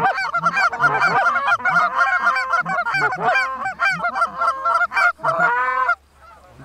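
Canada geese honking, a dense chorus of many overlapping honks that stops abruptly about six seconds in.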